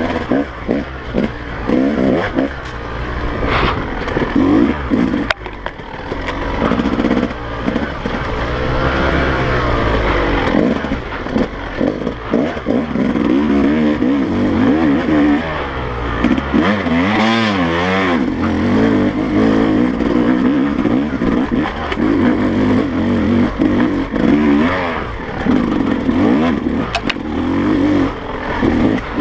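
2017 Yamaha YZ250 two-stroke dirt bike engine revving up and down as it is ridden over rough trail, with short knocks and rattles from the bike.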